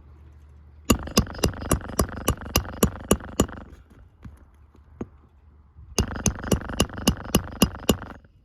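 Two runs of quick, sharp hammer strikes on a shingle roof, about four blows a second. The first run lasts nearly three seconds, then after a pause a second run of about two seconds.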